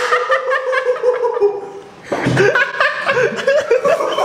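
People laughing and chuckling in quick repeated bursts, breaking off briefly about two seconds in.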